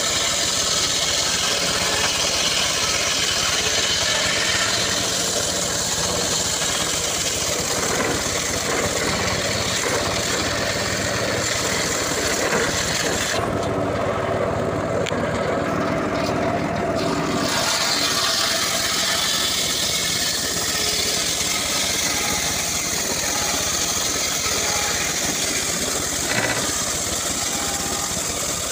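Homemade circular saw bench ripping a dry acacia log lengthwise, the blade running loud and steady through the wood. For a few seconds near the middle the cutting noise drops away and the saw runs on without load between passes. Then the cut resumes.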